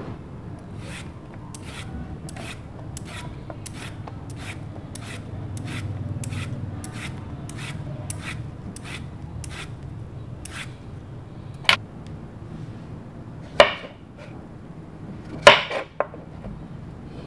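Metal vegetable peeler scraping the skin off a zucchini in strips, a stroke about twice a second. Near the end a few sharp knocks on a plastic cutting board.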